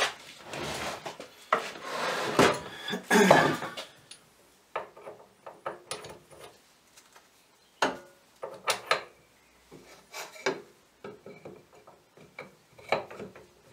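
Hand-handling of wooden and metal parts while a handle is fitted to a drill press's rise-and-fall mechanism: rubbing and scraping for the first few seconds, then scattered clicks and knocks.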